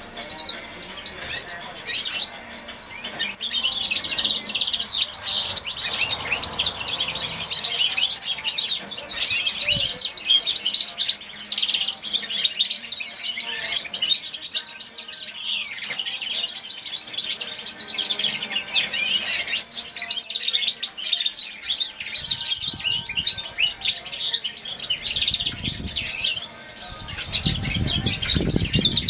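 A young hybrid finch (a canary-breeder's 'bastard' mule) singing a nearly unbroken stream of rapid, high twittering phrases. The song was learned from a grey singing finch.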